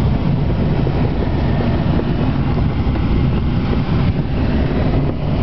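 Steady rush of air around a glider's cockpit in flight at about 80 km/h, a deep unbroken rumble with wind buffeting on the microphone.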